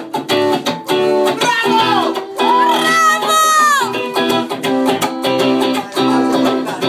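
Acoustic guitar strumming steady chords while a harmonica plays a solo line into the microphone, with notes that bend and slide down in pitch in the middle.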